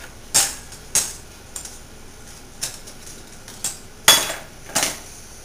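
Metal cutlery clinking as pieces of silverware are handed over and dropped into the compartments of a cutlery drawer: a string of separate sharp clinks, the loudest two near the end.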